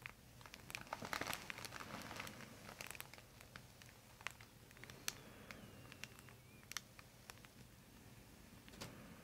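Faint crinkling and rustling of a paper headrest cover and hair under a chiropractor's hands as he holds the head in gentle neck traction. It is busiest in the first few seconds, with scattered small clicks after.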